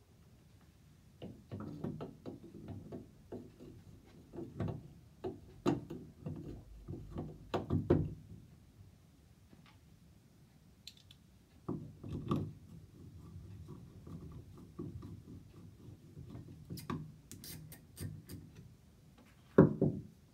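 Irregular clicks and knocks of plastic and metal as a clear acrylic knob handle is fitted onto a tub-and-shower valve's cartridge stem, with a louder knock near the end.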